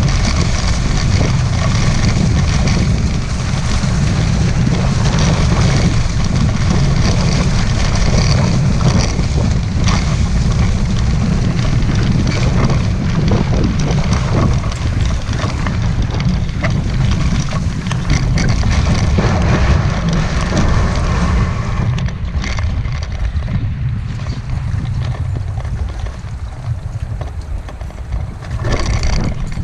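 Wind buffeting the microphone and water rushing and hissing past the hulls of a Hobie 16 catamaran sailing at speed. About two-thirds of the way through, the water hiss fades and the sound gets quieter as the boat slows to a stop, with a brief louder rush near the end.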